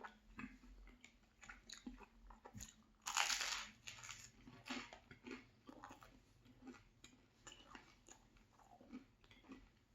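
Close-miked eating: wet chewing and small crackles throughout, with one loud crunchy bite about three seconds in.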